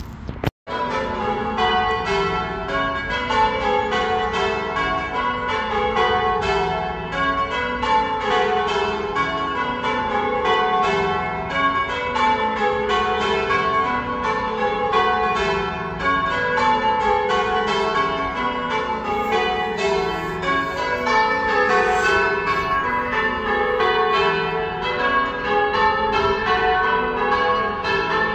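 A ring of church tower bells being rung in changes: rapid, evenly paced strikes falling in repeated descending rows from the highest bell to the lowest, each note ringing on into the next.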